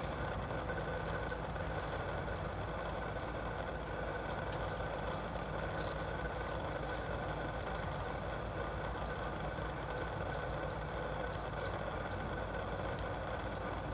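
Outdoor ambience: a steady low hum, with many short, high chirps scattered irregularly throughout.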